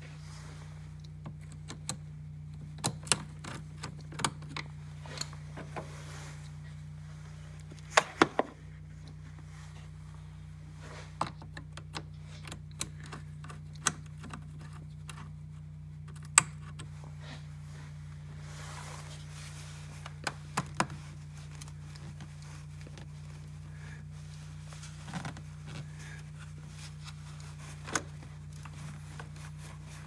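Irregular metal clicks and clinks of a socket on an extension bar working an intake hose clamp, some in quick clusters of two or three, over a steady low hum.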